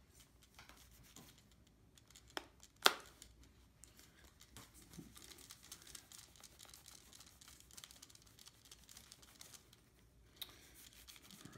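Microfiber cloth faintly rubbing and scratching over a plastic camera body as it is wiped down. Two sharp clicks from handling the camera, about two and a half and three seconds in, the second louder.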